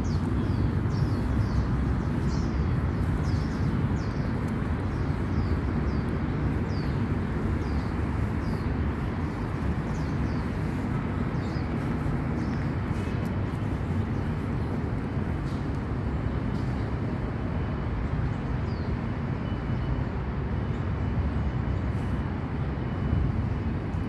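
Steady low rumble of city traffic, with a bird repeating short, high, falling chirps, many in the first several seconds and a few more later.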